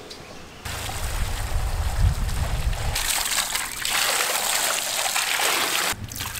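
Water splashing and pouring over a large pot of raw potatoes as they are washed by hand. It starts about half a second in, turns brighter and hissier about halfway through, and cuts off abruptly near the end.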